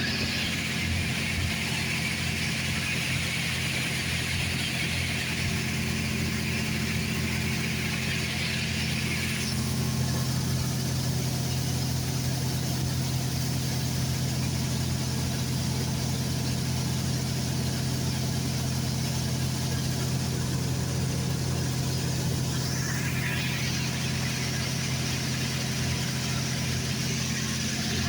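John Deere combine's diesel engine running steadily while harvesting barley, a continuous low hum with a higher hiss over it that drops away about nine seconds in and comes back near the end.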